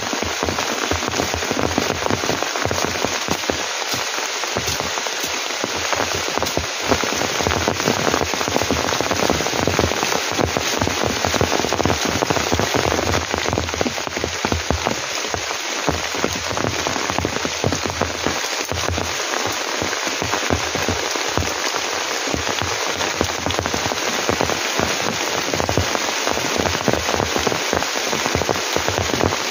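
Heavy rain falling steadily: a dense hiss of countless drops striking close by, running on without a break.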